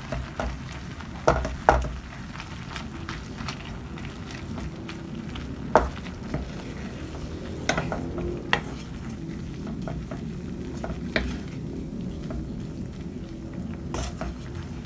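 Wooden spatula stirring shredded young coconut through thick caramelized muscovado sugar in a metal pan over the heat, the mixture sizzling steadily. The spatula knocks against the pan in sharp irregular clicks a second or a few seconds apart.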